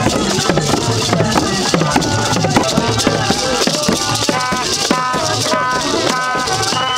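Large Ganda drums beaten with sticks in a fast, dense rhythm, with a gourd rattle shaken along and voices singing over them; held notes join in about halfway.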